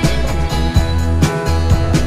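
Background music: a rock track with guitar over bass and a steady drum beat.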